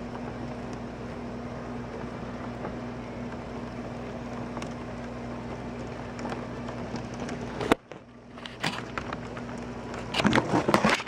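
Steady rush of wind-driven storm rain with a low steady hum beneath it. It cuts off abruptly about three-quarters of the way through, and scattered clicks and knocks follow, loudest near the end.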